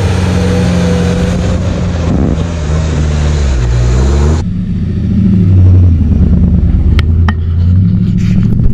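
Off-road 4x4 truck's engine revving up and down as it claws through deep mud, with a hiss over the top. About four seconds in the sound cuts abruptly to another 4x4's engine running lower and steadier, with two sharp clicks near the end.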